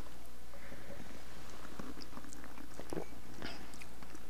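Faint mouth sounds of people sipping and tasting red wine close to lapel microphones: small lip clicks and a few soft slurps, over a low steady hum.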